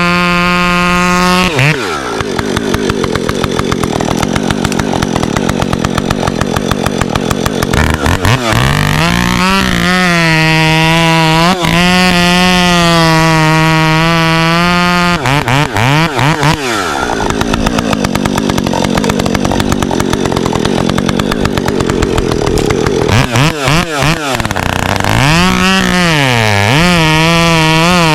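Husqvarna professional two-stroke chainsaw bucking firewood. It runs at full throttle, then drops in pitch as the chain loads in the wood through two long cuts. Between the cuts it revs back up.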